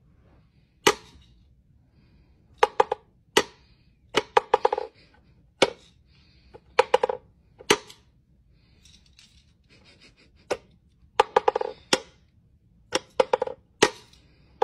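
Wooden whack-a-mole cat toy clacking: the pop-up mole and wooden push-sticks knock in the box as a cat swats at it. Sharp wooden knocks come singly and in quick runs of two to four, at irregular gaps.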